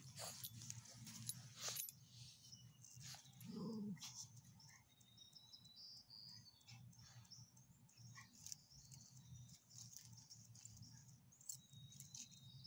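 Near quiet, with faint clicks and rustles from small dogs moving on leashes over grass and dry leaves. One short, low bark from a small dog comes about three and a half seconds in.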